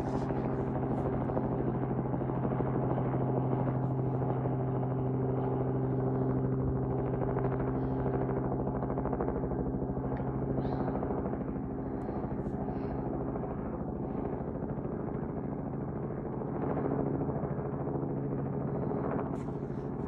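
Robinson R44 helicopter flying past overhead: a steady drone of its rotor and six-cylinder piston engine, easing off a little past the middle and swelling again near the end.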